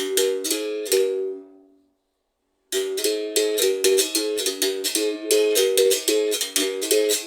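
Berimbau struck with a stick in a quick, steady rhythm, switching between two or three pitches. The playing stops about a second in and rings away into silence, then starts again abruptly just before the three-second mark.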